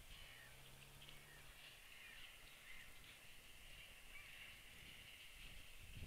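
Near silence with faint distant birds chirping and calling throughout.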